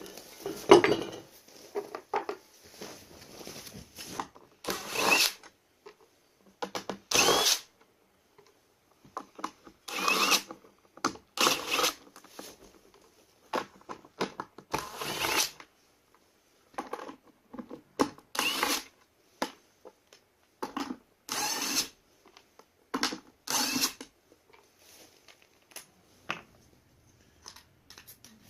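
Power drill run in short trigger bursts, about a dozen, each under a second, its motor pitch rising as it spins up.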